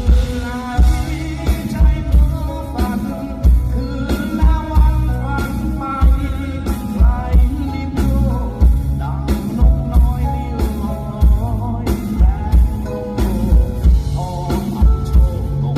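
Rock music: a band with drum kit and guitar keeping a steady beat under a melodic lead line.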